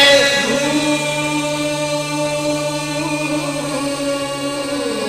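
Punjabi Sufi devotional song, with long held sung notes over a steady low instrumental drone between lines of the lyrics; the low drone stops about two-thirds of the way through.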